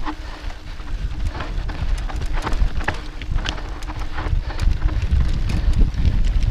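Mountain bike ridden fast over a dirt singletrack: tyres crunching on dry dirt and gravel, with many quick clicks and rattles from the bike, over a steady low rumble of wind on the microphone.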